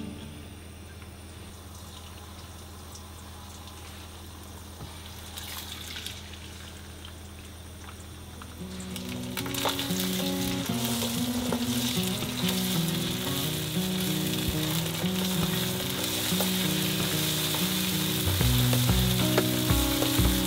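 Beaten eggs frying in hot oil in a non-stick wok, a soft sizzle that turns loud and hissing about nine seconds in, while a silicone spatula pushes the setting eggs around and breaks them into pieces.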